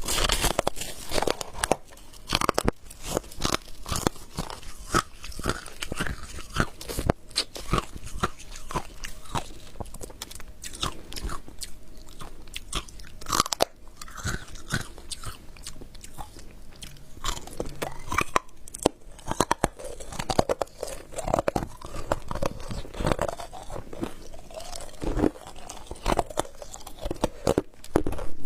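Freezer frost ice being bitten and chewed, with many irregular crunches in quick succession throughout.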